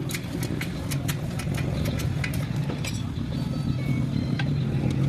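A motor running steadily, with sharp, evenly spaced clicks about three times a second that thin out about halfway through.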